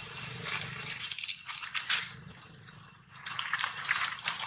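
Crackling and rustling of dry leaves as macaques move about close to the microphone, in two stretches with a short lull in between.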